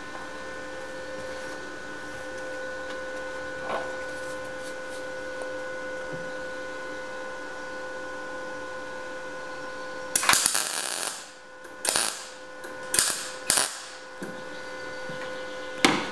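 MIG welder laying plug welds through the drilled holes of a steel repair panel: a crackling burst of about a second, then four shorter ones, over a steady electrical hum.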